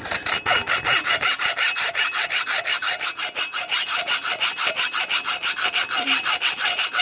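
A saw blade cutting through the steel of a handcuff in fast, even strokes, several a second: a steady rasp with a high metallic ring.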